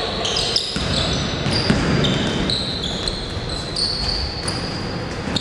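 A basketball bouncing on a hall floor during a game, a few irregular thuds among the noise of the hall, with short high squeaks from players' shoes.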